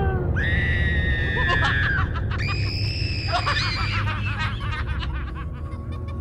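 Cartoon soundtrack: two long high-pitched screams, each held for over a second and falling off at its end, with quick snickering laughter around the middle, over a low rumble.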